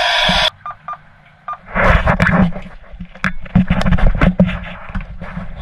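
Standard Horizon Explorer VHF marine radio: the hiss of static cuts off about half a second in, then three short key beeps sound as the channel is switched from 16 to 10. Loud, irregular crackling noise follows over a low hum.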